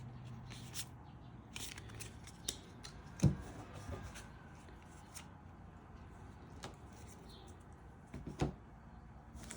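Quiet handling of Yu-Gi-Oh trading cards and booster-pack wrappers: faint rustling with a few scattered sharp clicks and taps, the loudest about three seconds in and again near the end.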